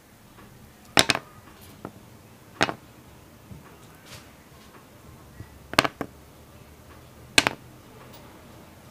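Four short, sharp clicks or taps at uneven intervals over faint room noise.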